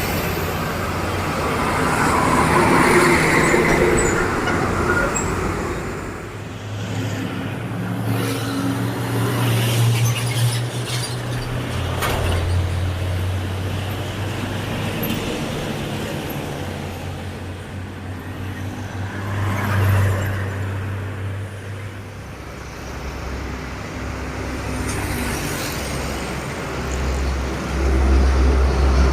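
Road traffic with heavy diesel vehicles going past, engines running low under tyre and road noise. Loud passes swell about three seconds in and again about twenty seconds in, and a low engine grows louder near the end.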